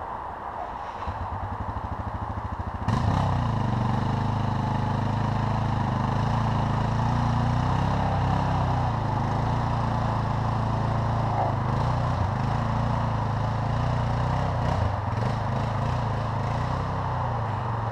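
Single-cylinder Suzuki DR dual-sport motorcycle engine. It pulses faintly at first, then about three seconds in turns suddenly louder and runs steadily close by, with small rises and dips in revs.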